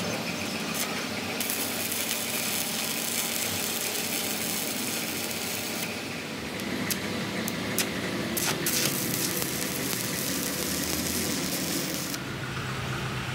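Stick (arc) welding on a crack in a truck's front axle: the arc crackles and hisses steadily, with sharp spatter pops. It starts a second or so in, breaks off briefly about six seconds in, and stops near the end.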